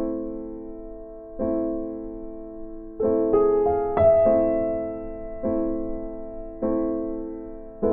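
Background music: slow piano chords, each struck and left to fade, with a quicker run of notes about three seconds in.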